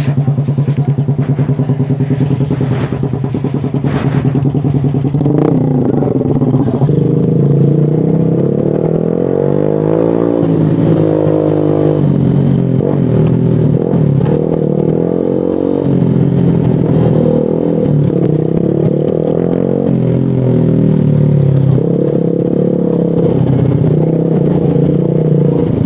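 Suzuki Smash R underbone motorcycle's small single-cylinder four-stroke engine running through an aftermarket SC Project exhaust canister while riding. Its pitch rises and falls several times with throttle and gear changes.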